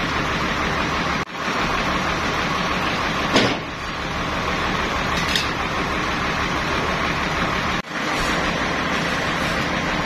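Sawmill machinery running steadily, a motor's even low beat under a dense mechanical noise. A single sharp knock about three and a half seconds in, and the noise drops out for an instant twice.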